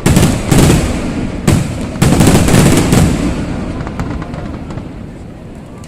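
Aerial fireworks shells bursting: four loud booms in the first two seconds, each followed by a low rumble, then the rumbling fades away.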